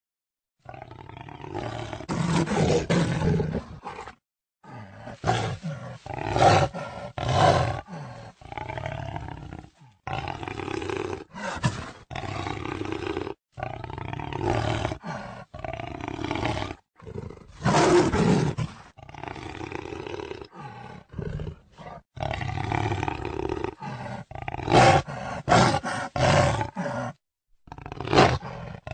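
Jaguar calling in a series of calls of varying length, each cut off by a brief silent break.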